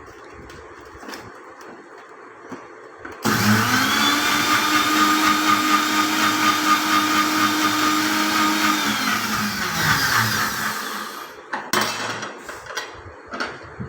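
Electric blender switched on about three seconds in, churning curd and spices into buttermilk. It runs at a steady, high, even whine for about six seconds, then winds down in pitch as it is switched off. A few sharp knocks near the end.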